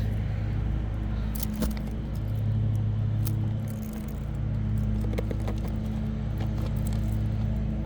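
Steady low mechanical hum, like an engine running nearby, with scattered light clicks and scrapes as an asphalt shingle is pried up by hand.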